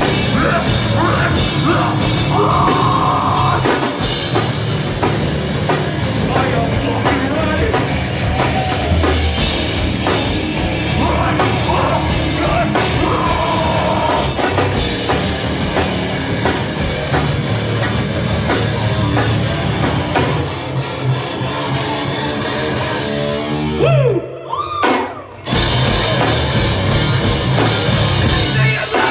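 Metalcore band playing live: heavily distorted electric guitars, bass and a pounding drum kit with screamed vocals. A little after 20 s the sound thins, and around 24 s there is a brief stop before the full band comes back in.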